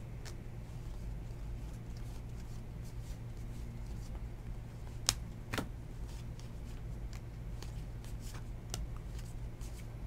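2019 Topps Series 2 baseball cards being flipped one at a time through a stack in the hands, a run of soft card-on-card flicks and slides. A sharper click about five seconds in, over a steady low hum.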